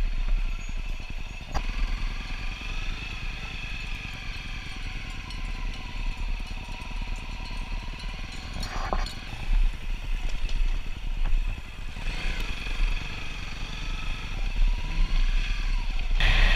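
Honda CRF250L's single-cylinder engine running at low revs, with the bike clattering over a rutted dirt track and a sharp knock about nine seconds in. Near the end a louder hiss comes in as the tyres roll onto loose gravel.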